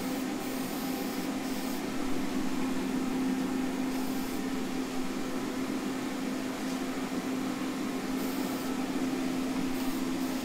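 Aerosol can of primer sprayed in a few short hissing bursts, the longest about a second in, over the steady hum of a running heater.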